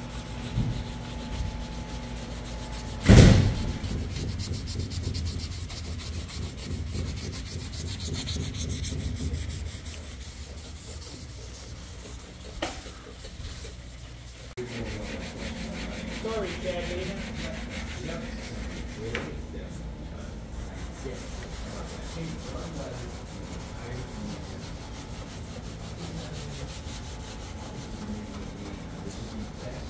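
A fine abrasive pad rubbed by hand over epoxy-primed sheet-metal door jambs and body panels, a steady scratchy scuffing. A single sharp knock about three seconds in.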